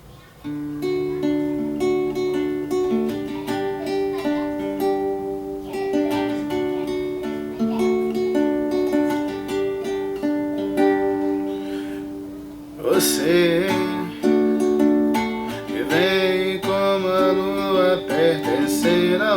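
An acoustic plucked-string instrument (guitar or ukulele) plays a chord accompaniment. About thirteen seconds in, a solo voice begins singing over it.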